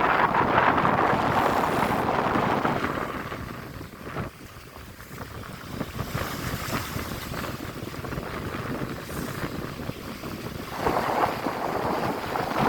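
Strong wind buffeting the microphone over the sea, with the wash of waves beneath it. The gust is loud at first, eases about three seconds in, and picks up again near the end.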